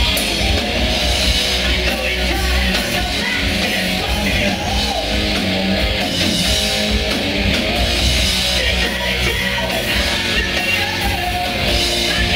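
Live hard rock band playing loudly, with a singer's voice over the band.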